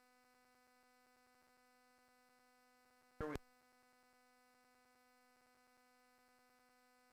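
Near silence with a faint, steady electrical hum. A brief fragment of a man's voice cuts in for a moment about three seconds in.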